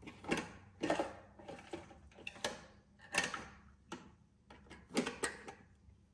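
Plastic clicks and knocks from a toy side-loading garbage truck's arm being worked by hand, with small plastic wheeled bins lifted, tipped and set down on a concrete floor. It is an irregular string of about eight separate knocks.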